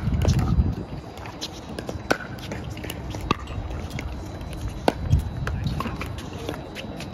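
Pickleball rally: sharp, hollow pops of paddles hitting the plastic ball, several single hits about a second or more apart, with a low rumble near the start.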